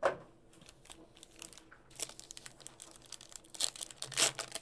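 Foil trading-card pack being picked up and torn open, with crinkling and tearing of the wrapper that grows louder toward the end. A short knock comes right at the start.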